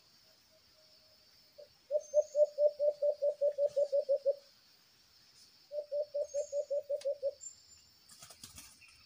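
White-eared brown dove calling: two runs of rapid, evenly spaced hooting notes, about six a second, the first run lasting over two seconds and the second shorter. A brief rustle comes near the end.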